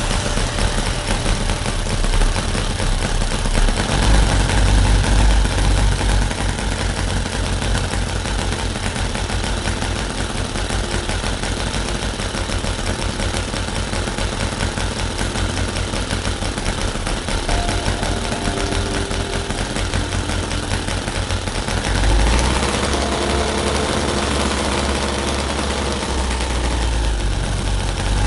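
Miniature Harley-Davidson V-twin replica engine running steadily on hydrogen made by water electrolysis, firing rapidly while it drives a small DC generator by belt. About 22 seconds in, its low rumble grows heavier.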